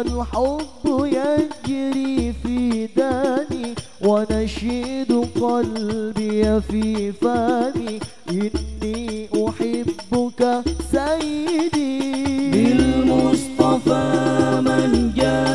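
Islamic sholawat performed live: a lead voice sings a wavering, ornamented melody over regular deep frame-drum strokes. About twelve and a half seconds in, the whole group joins in, singing together.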